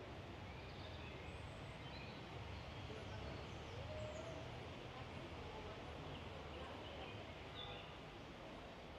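Faint outdoor ambience: a steady low background rumble with scattered short bird chirps.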